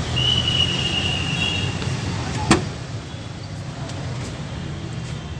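Maruti Omni door being opened: one sharp latch click about two and a half seconds in, over a steady low hum. A thin high steady tone sounds through the first two seconds.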